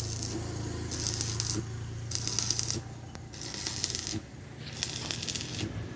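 A steady low machine hum, with patches of light clattering and rustling noise on top several times.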